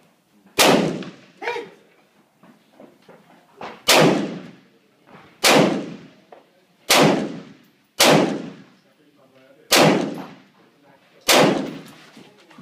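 Rifle fire in a practical shooting stage: seven single shots about one to one and a half seconds apart, each trailing off in a long echo. A fainter ringing clang comes about a second and a half in.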